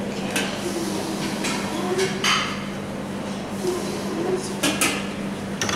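Clinks and clatter of metal chafing-dish lids and serving utensils at a buffet counter, a handful of sharp knocks spread through, over a steady low hum and faint background chatter.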